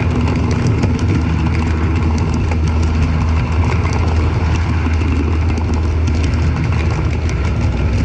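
Model railway train, an electric locomotive hauling passenger coaches, rolling past on track laid without cork underlay. The camera rests on the rails beside a turnout, which picks up a loud, steady low rumble carried through the track, with rapid clicks of the wheels over rail joints.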